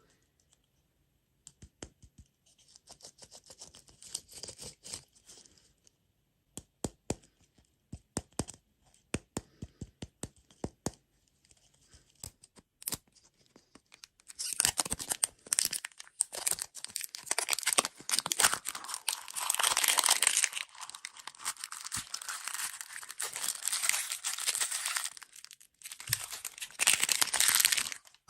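Scattered taps and clicks, then from about halfway a long stretch of loud crinkling and tearing of plastic snack packaging being opened.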